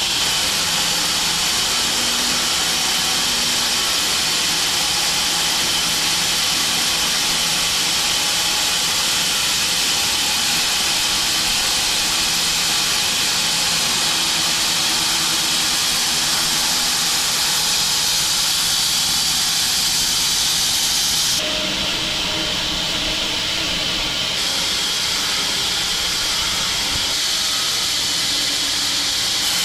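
Home-built wide bandsaw mill sawing through an elm log: a steady, loud hiss of the blade cutting, with the machine running underneath. About two-thirds of the way through, the tone briefly changes for a few seconds.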